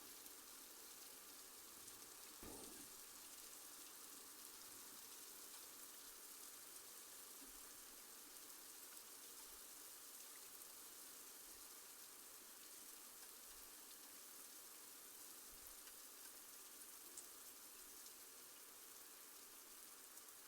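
Faint, steady rain falling during a thunderstorm, an even hiss, with one short low thump about two and a half seconds in.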